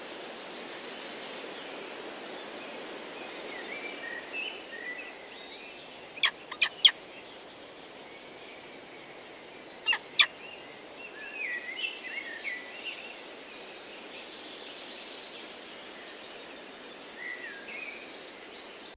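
Steady rush of a waterfall with birds calling over it in short chirping phrases. Five sharp loud clicks stand out, three about six seconds in and two about ten seconds in.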